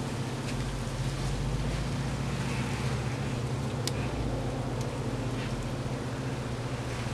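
Paper and cardboard trash burning in a metal fire pit: a steady hiss with a few faint crackles and pops, the sharpest about four seconds in, over a low steady rumble.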